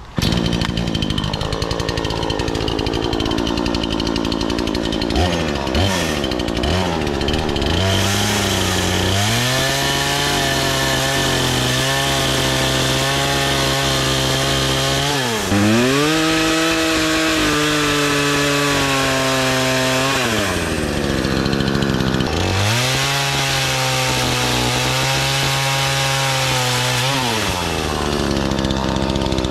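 Kingfisher FPCSP46-2 46cc two-stroke petrol chainsaw starting up suddenly and idling unevenly for several seconds. It is then revved up three times, each held high for about five to seven seconds, dropping back to idle between and near the end.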